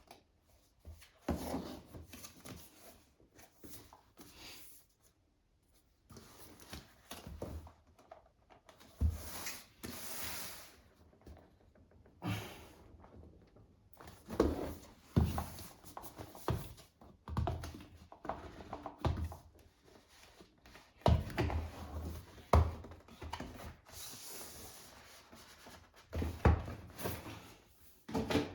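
Cardboard box and packaging being handled and opened: irregular rustling, rubbing and sliding with scattered knocks and thumps, broken by a couple of short pauses.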